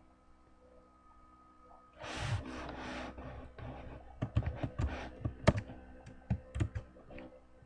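Typing on a computer keyboard: a run of uneven keystroke clicks from about four seconds in. A short rushing noise comes about two seconds in.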